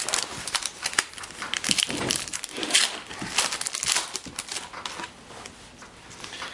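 Wrapping on a pack of hockey trading cards being torn open and crinkled by hand: a dense run of sharp crackles and rips, thinning out over the last couple of seconds.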